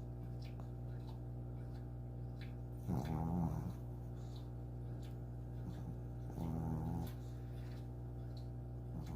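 Dog snoring loudly in its sleep: two snores, each under a second long, about three and a half seconds apart, over a steady low hum.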